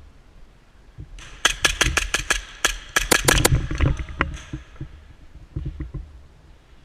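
Airsoft gunfire: a rapid string of about fourteen sharp shots in roughly two seconds, starting about a second in, followed by a few scattered clicks, over a low rumble of movement.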